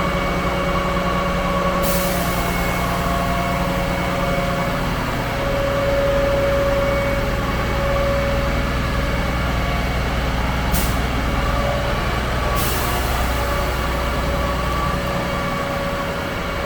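Concrete pump truck's engine running steadily with a whine, its level shifting a few times, and sharp air hisses starting about two seconds in and twice more later on.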